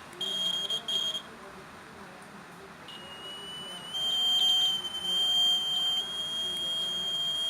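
Small piezo buzzer in a BC547 transistor touch circuit sounding a high, steady electronic tone: two short beeps in the first second or so, then after a pause a continuous tone that rises slightly in pitch and holds. The buzzer sounds when the transistor circuit is triggered through the touch wire.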